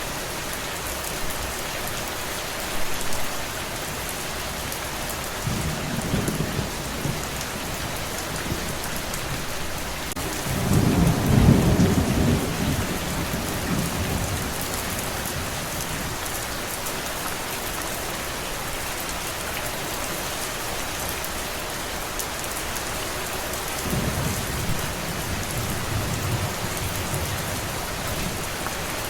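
Steady rain falling, with three low rolls of thunder, the loudest about eleven seconds in.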